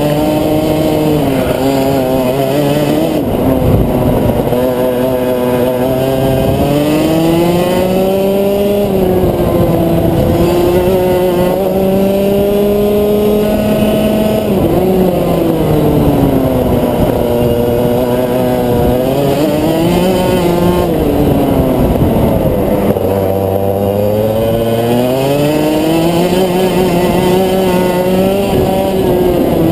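Rotax Max 125cc two-stroke kart engine being driven hard on track, its pitch climbing as it revs out down the straights and falling away sharply each time the throttle is lifted for a corner, several times over.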